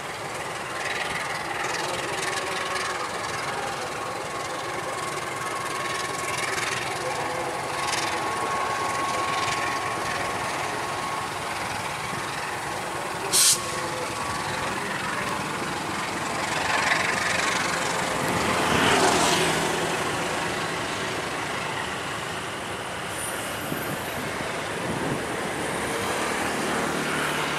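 Passenger coaches of a locomotive-hauled train rolling past, with a steady rumble of steel wheels on the rails and a faint steady squeal through the first half. One sharp bang about thirteen seconds in is the loudest sound.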